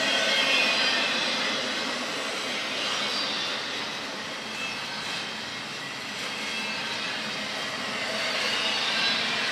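Double-stack intermodal well cars of a freight train rolling steadily past at close range, continuous wheel-on-rail noise with faint high wheel squeal, strongest near the start.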